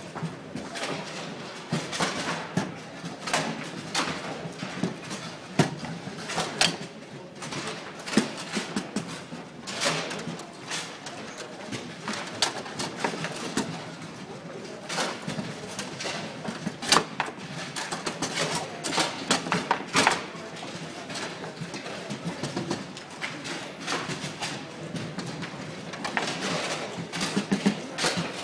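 Table-football game in play: the ball and the rod-mounted players striking each other, giving sharp knocks and clacks at irregular intervals over a steady background murmur.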